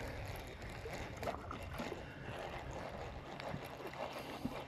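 Water lapping and small scattered splashes at the side of a small boat, over a low steady wash of wind noise on the microphone.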